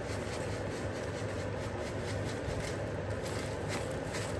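Steady whir of a kitchen chimney (range hood) fan running, with the soft rustle of dry grated coconut pouring from a plastic packet into a kadhai.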